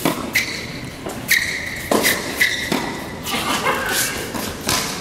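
Tennis rally on an indoor hard court: sharp knocks of racket strings striking the ball and the ball bouncing, a few times about a second apart, with short high squeaks of rubber-soled tennis shoes on the court between shots, echoing in a large hall.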